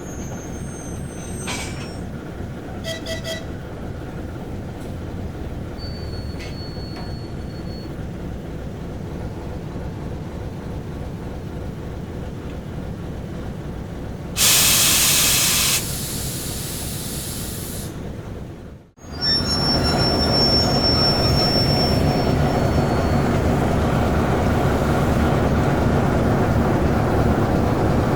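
A ChME3 diesel shunting locomotive's engine running with a steady throbbing beat, with metallic wheel squeals from the rails. About halfway there is a loud hiss of air lasting a second or two, and after a brief break the engine is louder and closer, with a high wheel squeal.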